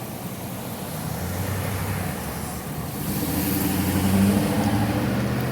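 A car's engine close by, growing louder as it approaches to a peak about four seconds in, then easing off as it drives past.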